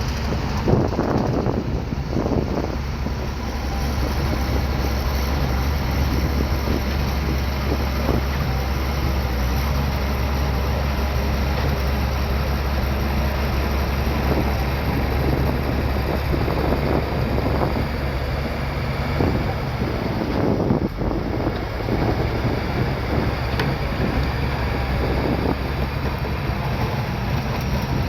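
Bulldozer's diesel engine running steadily under load, with a constant low hum and scattered short knocks and scrapes from the machine working.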